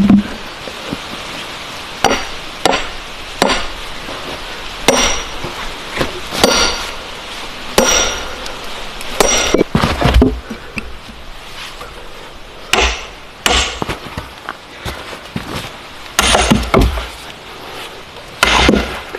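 Hammer blows on wood: sharp knocks at an irregular pace, roughly one every one to two seconds and sometimes in quick pairs, over a steady background hiss.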